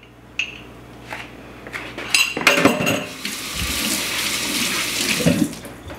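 Dishes and utensils clink and knock a few times, then a kitchen tap runs for about two seconds.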